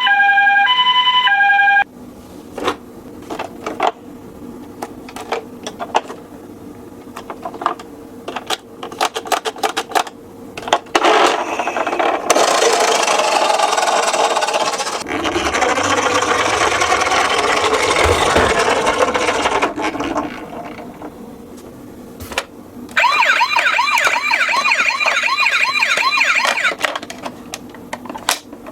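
Electronic toy siren: a brief two-tone hi-lo call at the start, then a fast warbling wail for about four seconds near the end. In between come scattered clicks, then about ten seconds of loud rattling as the toy cars roll down a slope.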